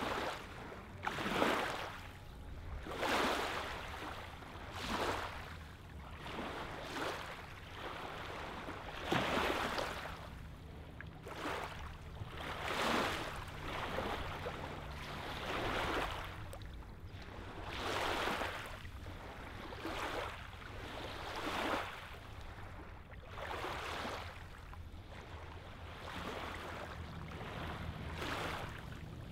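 Small lake waves lapping onto a gravel and sand shoreline, a wash of water about every two seconds, over a low steady rumble.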